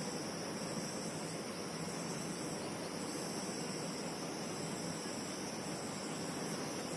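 Steady background hiss with a faint, even high-pitched ringing band and no distinct events.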